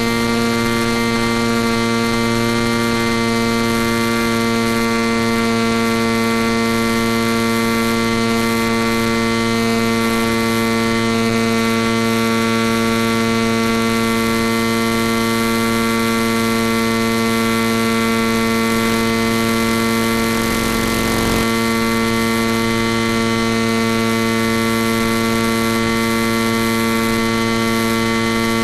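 Steady electrical hum with a buzzy row of overtones over constant hiss, unchanging in pitch or level, with a brief disturbance about 21 seconds in. This is the kind of buzz heard on the audio channel of an analog FPV video link.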